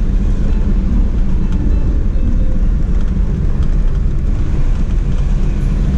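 Steady low rumble inside the cabin of a 2019 Jeep Wrangler Rubicon driving along a dirt track: engine running under way with tyre and road noise.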